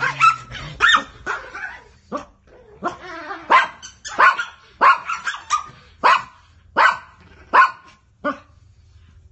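Small dogs, a pug and a miniature pinscher, squabbling over a squeaky toy. One of them gives a run of sharp barks, about one every 0.7 s, which stops near the end.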